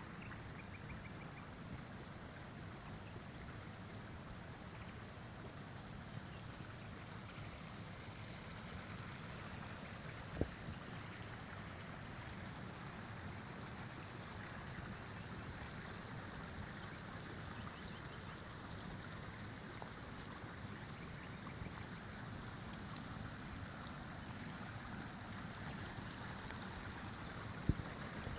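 Small stream running, a steady gentle rush of water that grows slightly louder toward the end, with a few short sharp clicks.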